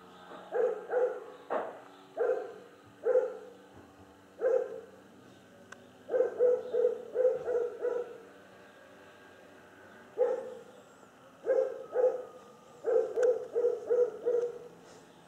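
A dog barking over and over, some single barks and some quick runs of four or five.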